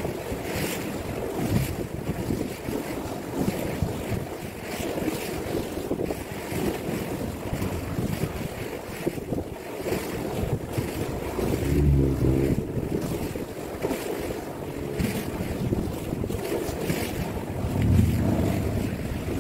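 Wind buffeting the microphone over sea waves breaking against a concrete seawall, with heavy gusts of rumble about twelve seconds in and again near the end.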